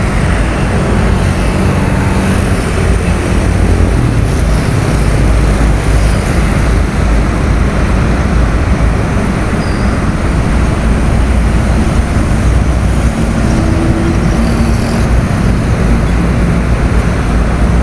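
Steady road traffic on a busy multi-lane toll road: a dense, continuous rumble of cars and trucks, with the engine hum of individual vehicles rising and fading within it.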